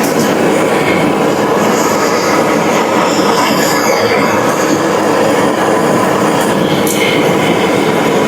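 Steady, loud machinery noise running without a break.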